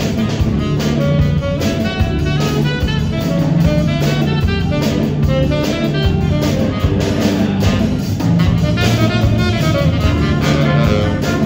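Student jazz big band playing: a standing saxophonist solos over the drum kit and rhythm section, with the trumpets playing behind near the end.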